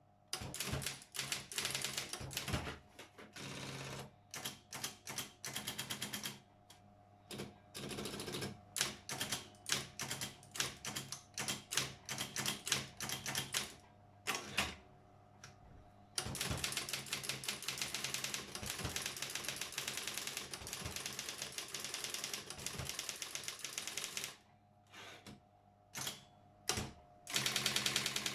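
Brother 4612 electric typewriter being typed on: runs of rapid key strikes broken by short pauses, with a long unbroken stretch of fast clatter in the middle. A steady low hum lies underneath.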